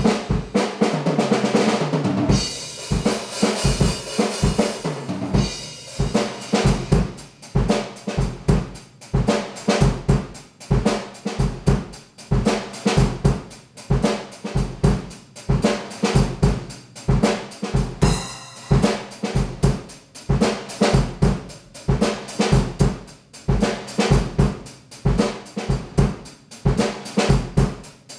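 A new TAMA drum kit played in a steady beat of bass drum and snare with cymbals. Heavy cymbal wash in the first few seconds, and a cymbal crash about two-thirds through.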